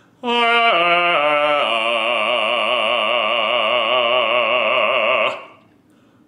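Male operatic baritone voice singing a warm-up exercise on an open 'ah': a quick run of notes stepping downward, then one long held note with vibrato, which stops about five seconds in.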